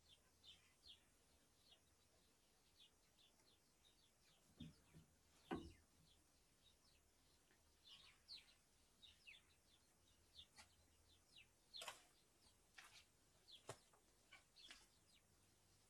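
Faint birds chirping: many short, quick chirps scattered throughout, with a couple of louder, lower sounds about five seconds in.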